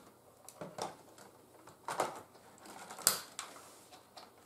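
Hard plastic parts of a Tefal Dual Force cordless stick vacuum clicking and knocking as the large floor brush is fitted onto it: a few scattered taps, the loudest about three seconds in.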